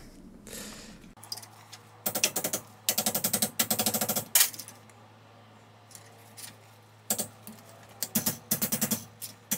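Rapid runs of light metallic clicking as pliers grip and work a stuck steel alignment punch back and forth, coming in several short bursts with pauses between them.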